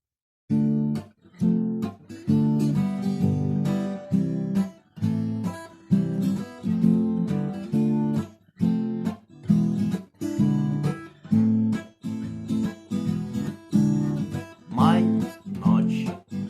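Acoustic guitar strummed in a steady rhythm, chords starting about half a second in: the instrumental intro to a song.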